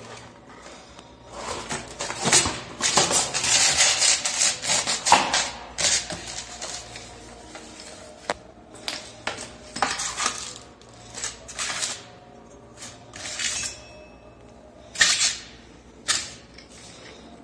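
A boxed wall mixer set being unpacked by hand: cardboard and styrofoam packaging rustling and scraping, with knocks and clinks as the metal mixer and shower hose are moved. The handling is busiest in the first few seconds, then comes in scattered separate knocks.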